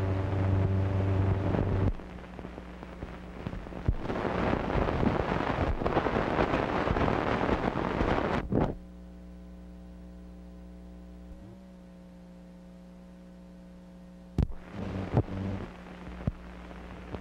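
Steady electrical mains hum on an old film soundtrack over blank frames, with a loud rushing noise for about six seconds in the middle; near the end a sharp click and a few brief crackles.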